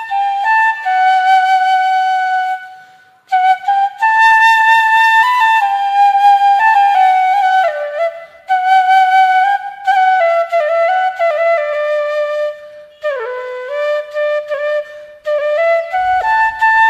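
Solo bamboo flute (bashi) playing a slow melody, with notes sliding into one another and a falling phrase near the end; the tune breaks off briefly about three seconds in.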